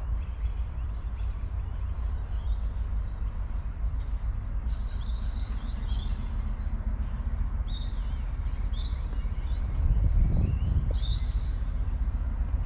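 Small birds chirping in short repeated calls over a steady low rumble, which swells louder about ten seconds in.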